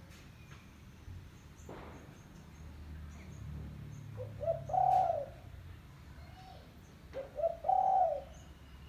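Spotted dove (tekukur) cooing: two phrases about three seconds apart, each a few short coos followed by a longer, louder coo.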